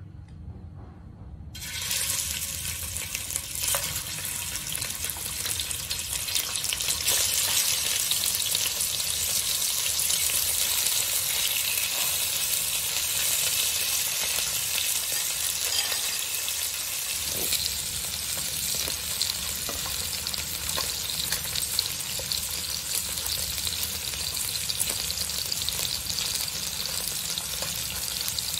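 Pork ribs sizzling in hot oil in a nonstick wok, the sizzle starting suddenly a little under two seconds in as the ribs go into the oil and then holding steady. Metal tongs click lightly against the pan now and then.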